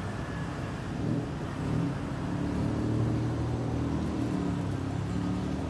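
A steady low motor rumble.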